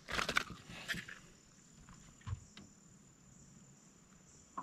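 Insects buzzing steadily at a high pitch, with a few short scuffling noises in the first second and a single knock a little after two seconds in.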